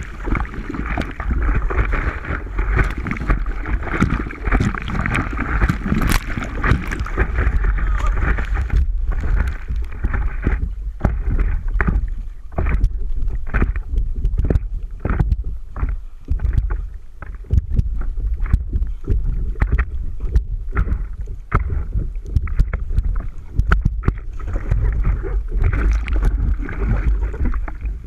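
Wind buffeting the microphone with water splashing and sloshing, and frequent short knocks or thuds.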